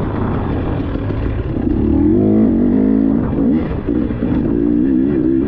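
Dirt bike engine revving up and down as the throttle is worked. Its pitch climbs about two seconds in, drops back, then rises again near the end.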